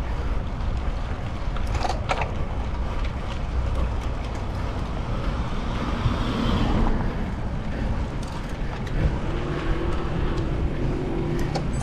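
Steady wind rush on the microphone of a bike-mounted camera while riding, with a car driving past in the adjacent lane about six seconds in.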